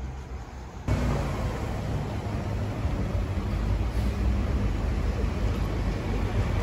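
Road traffic noise with a vehicle's engine running close by, coming in abruptly about a second in and holding steady and loud.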